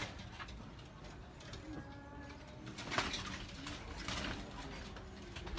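Pigeons cooing in low, wavering notes, with a few sharp clicks and taps among them, the loudest about three seconds in.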